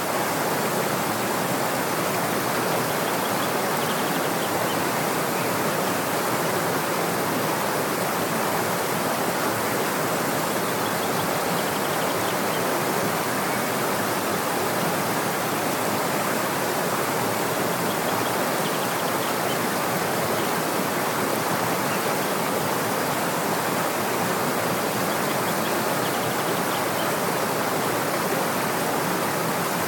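The Schlichem stream rushing through its gorge, a steady, even sound of fast-flowing water over cascades.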